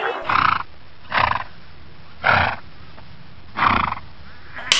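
Four short, noisy horse calls about a second apart, followed near the end by the sharp snap of a film clapperboard closing.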